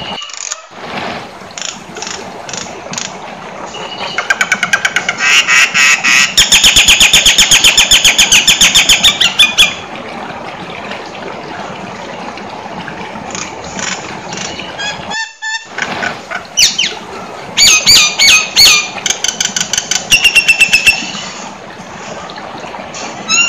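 Nias hill myna calling loudly. A long run of rapid repeated notes gives way to scattered calls, then a burst of loud whistles and squawks, all over a steady background hiss.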